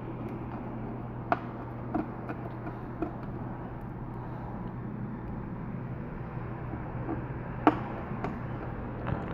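Scattered small clicks and taps of a precision screwdriver and tiny screws as an iPad 4 home button is screwed into place, the sharpest click a little before the end, over a steady low hum.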